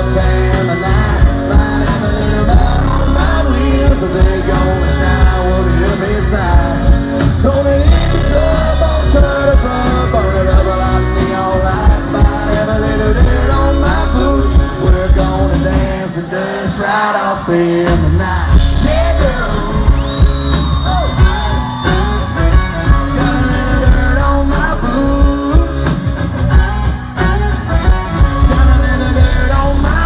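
A live country band playing through the concert PA, heard from within the crowd, with vocals and a heavy bass line. The bass drops out for a couple of seconds about halfway through, then comes back in.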